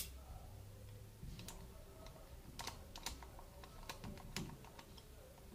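A handful of small, irregular metal clicks as a screwdriver turns the worm screw of a hose clamp, tightening the band around the rubber of a homemade diving mask.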